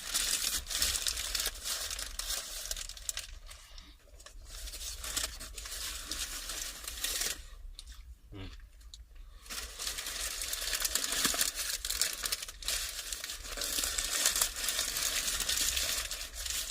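Crinkling and rustling of the wrapping around a lamb wrap as it is handled and peeled back between bites, coming in uneven stretches with two short pauses.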